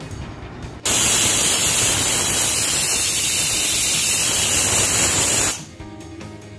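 Stovetop pressure cooker letting off steam through its weighted vent in one loud, steady hiss of about five seconds that starts and stops abruptly. This is the cooker's whistle, the sign that it has reached full pressure with the dal cooking inside.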